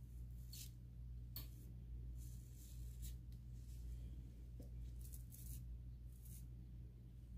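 Toothbrush bristles brushing along the hairline to lay the edges, a faint scratchy sound in short, irregular strokes. A steady low hum runs underneath.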